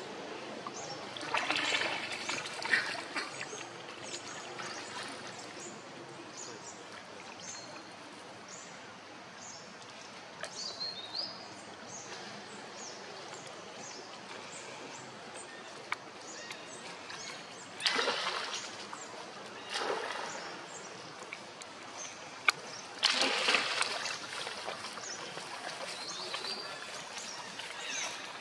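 Outdoor forest ambience: a steady background hiss with faint high chirps, broken by a few short, louder noisy bursts, the loudest about two-thirds of the way through.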